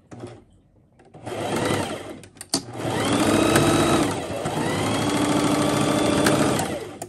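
Singer electric sewing machine stitching a seam through fabric: a short burst, then a longer run that slows briefly in the middle, speeds back up and stops near the end.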